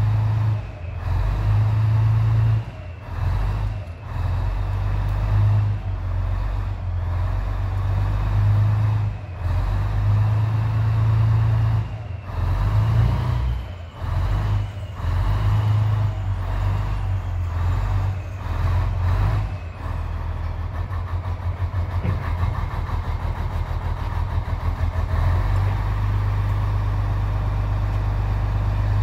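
Heavy tracked recovery vehicle's diesel engine running under load as its boom lifts a T28 outer track unit, surging and dropping back repeatedly, then settling into a steady, evenly pulsing run for the last third.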